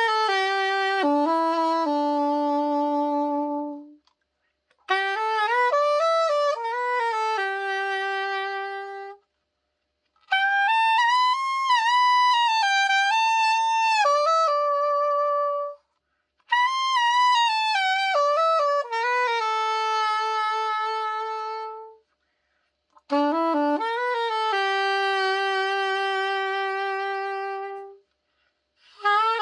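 Yanagisawa S-992 bronze soprano saxophone played in short phrases of a few seconds each, every phrase ending on a held note, with brief pauses between them. It is a play test of the horn after a full overhaul.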